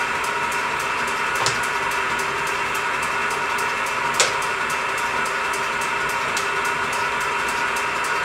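ABNO 25 kg power hammer idling under its electric motor: a steady running hum with a faint regular ticking from the drive. Two short sharp clicks sound about a second and a half and four seconds in.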